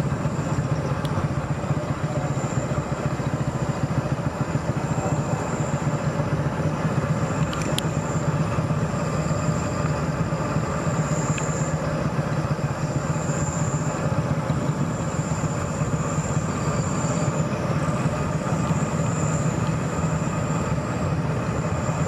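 Motorcycle riding steadily at night: a continuous engine drone mixed with wind and road rumble, picked up by a phone microphone covered with a handkerchief. A thin high whine swells and fades over the top throughout.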